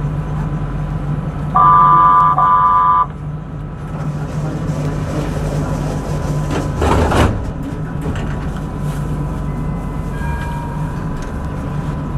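Cab of a stationary tram with a steady low electrical hum. About two seconds in, a loud electronic warning tone sounds in two back-to-back beeps lasting about a second and a half, and a brief rushing noise follows around seven seconds.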